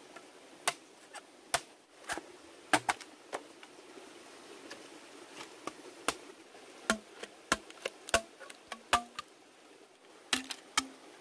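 Sharp knocks at irregular intervals, like blows on wood. Near the end they settle into an even beat of close to three a second, each with a short pitched ring.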